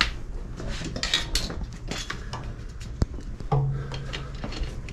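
Hand tools and metal hose clamps being handled while hoses are clamped onto a coolant tank: scattered metallic clinks and clicks, with one sharp click about three seconds in.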